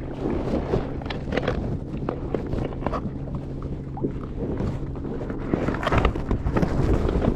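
Wind buffeting the microphone over a steady low hum, with scattered knocks and clicks of handling.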